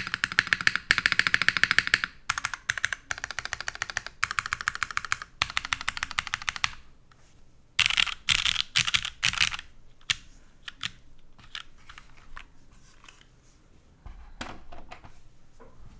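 Typing on a Merisi Ottantaquattro mechanical keyboard with leaf-swapped vintage Cherry MX Black linear switches, GMK keycaps and a full aluminium plate. It starts as fast, continuous keystrokes and, after a short pause and one more quick flurry about halfway through, thins out to scattered single key presses.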